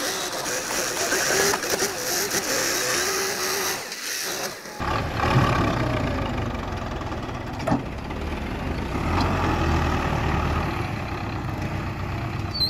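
Tractor diesel engine running, then from about five seconds in a deeper, heavier engine sound as it strains under load to pull a trolley heaped with soil. A single sharp knock about eight seconds in.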